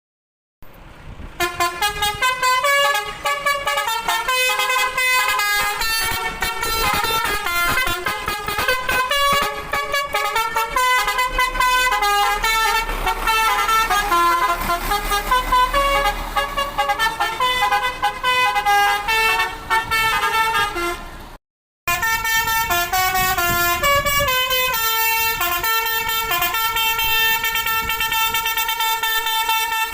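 Basuri multi-tone 'telolet' bus horn playing quick stepping melodies, several horn notes sounding together. It drops out briefly about 21 seconds in, then carries on.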